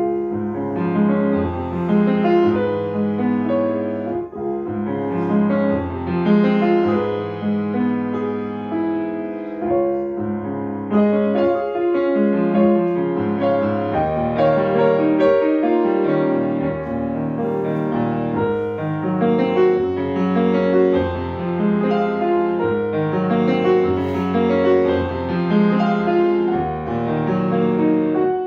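Grand piano played solo: a continuous, flowing passage of many notes that comes in loudly at the start.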